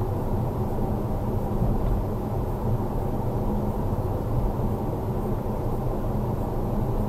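Steady drone of a car driving along a road, heard from inside the cabin: engine and tyre noise picked up by the dashcam's microphone, an even low rumble with no sudden events.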